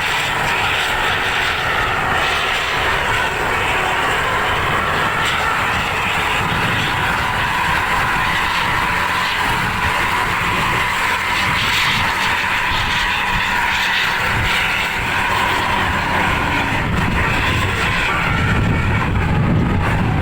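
A bus running steadily, a constant drone of engine and road noise without clear horn tunes.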